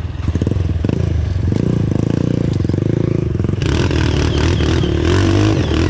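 Several dirt-bike engines, among them a Honda CRF's single-cylinder four-stroke, running and being revved close by as the riders work their way up a steep dirt-trail climb.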